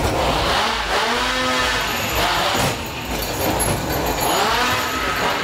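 A chainsaw sound effect on the ghost train's soundtrack, revving up and falling back twice over the low rumble of the ride car running on its track.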